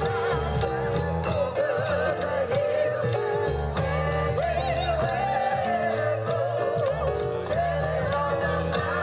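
Holiday music with jingle bells shaken in a steady beat over a bass line and a wavering melody.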